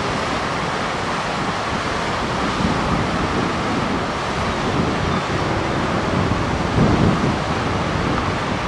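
Steady rush of water pouring over a dam spillway, with wind gusting on the microphone, strongest about seven seconds in.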